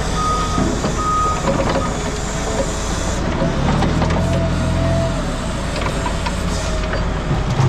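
Truck backing up, its reversing beeper sounding about once a second and stopping about a second and a half in. The diesel engine keeps running and swells for a couple of seconds mid-way, with a few knocks and rattles over it.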